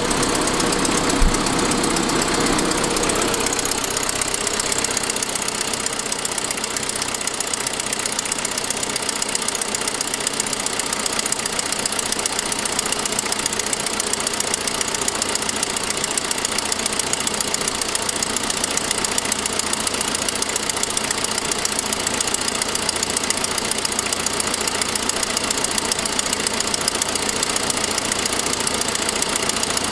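A 2006 Saab 9-5's engine running with a fast, steady ticking, with one louder knock about a second in. The tick is an exhaust leak at the header from a broken forwardmost exhaust stud, though it sounds much like lifter tick.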